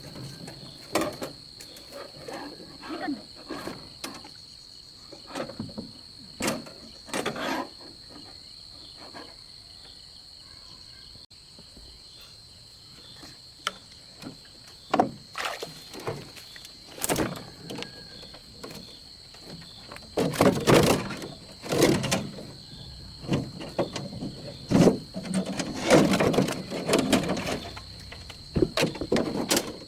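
Irregular knocks and thumps, a few in the first half and many louder ones from about two-thirds of the way in, over a steady high-pitched insect drone.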